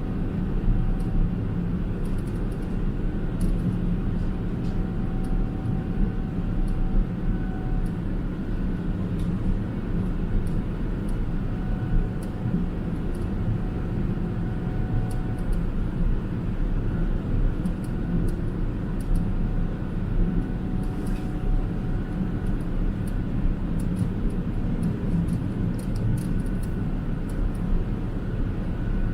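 Cabin noise inside a Boeing 777-300ER with GE90 engines: a steady, even low rumble with a faint whine on top and scattered light ticks.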